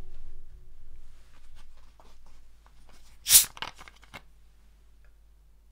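Soft knocks of bottles being handled, then a short, sharp hiss as a plastic Coca-Cola bottle's cap is twisted open and the gas escapes, followed by a few small clicks of the cap.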